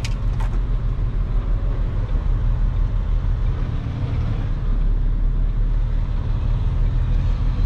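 Crane truck's diesel engine running steadily, a low rumble throughout.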